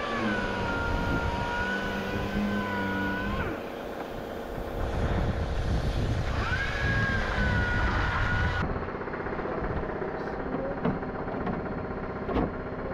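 A vehicle engine running, with a steady two-note tone held twice: first for about three and a half seconds, then again for about two seconds.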